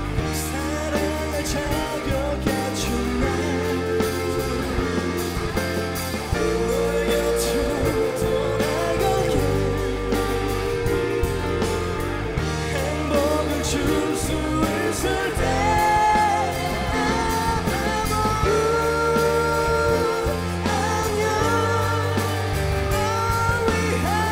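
Live pop-rock band playing a song, with a male lead singer holding long sung notes over guitar, bass and drums.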